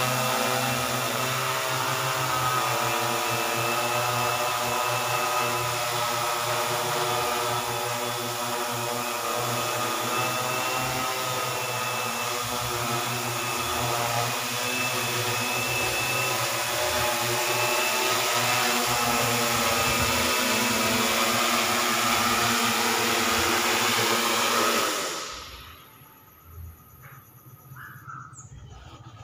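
DIY quadcopter spray drone's motors and propellers running in hover, a steady pitched hum that shifts slightly in pitch. Near the end it spins down and cuts out as the drone lands.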